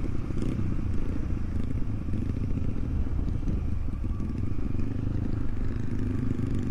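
Supermoto motorcycle engine running steadily while riding, a continuous low rumble with no revving up or down.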